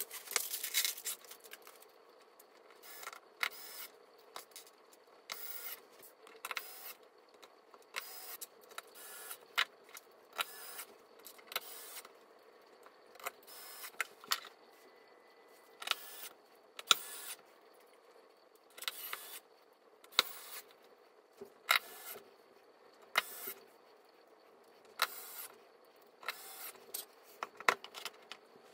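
Furniture-assembly handling sounds: plastic packaging rustling at first, then a long run of short clicks, knocks and clatters from metal frame parts and screws being handled and fitted, with brief quiet gaps between.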